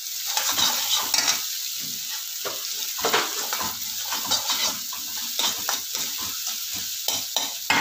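Perforated steel spatula stirring and scraping chopped vegetables sautéing in oil in an iron kadai: a steady sizzle with irregular scrapes and clinks of metal on the pan.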